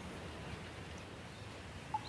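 Steady outdoor rain-and-water noise, an even hiss over a low rumble, with one short bird chirp just before the end.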